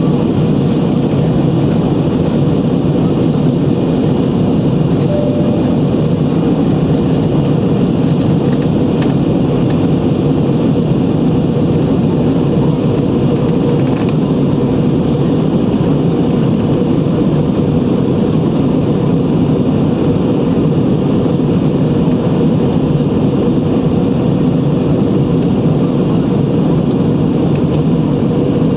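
Steady engine and airflow noise inside a passenger aeroplane's cabin, even throughout, with a faint steady tone running through it.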